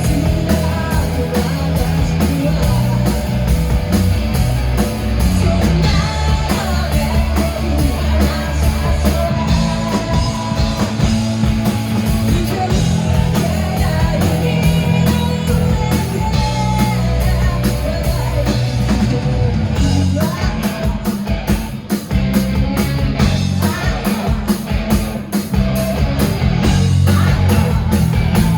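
Live rock band playing loud: distorted electric guitar, bass and drums, with a woman singing at times.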